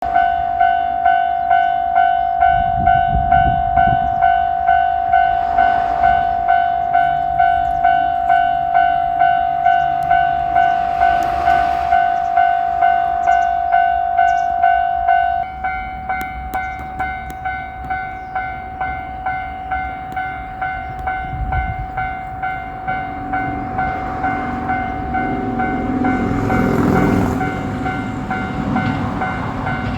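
Japanese level-crossing warning bell ringing electronically at about two strokes a second, dropping to a lower volume about halfway through. Then a JR Shikoku 7200 series electric train approaches and runs over the crossing, its running noise loudest near the end.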